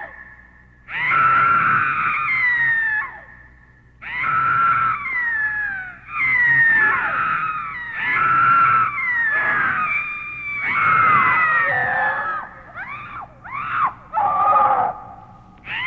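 A high-pitched voice screaming over and over, about seven long screams that each slide down in pitch, with a few short rising-and-falling shrieks near the end.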